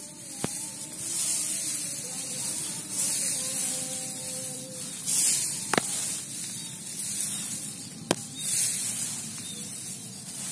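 Grass and rice leaves rustling in swells of hiss as they are brushed aside close to the microphone, with three sharp clicks.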